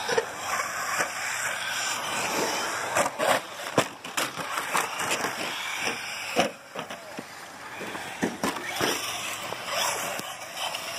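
Radio-controlled cars running on a dirt track: a steady gritty scraping rush of tyres and chassis on dirt, broken by many sharp knocks and clacks from bumps and tumbles. The loudest knock comes about six seconds in.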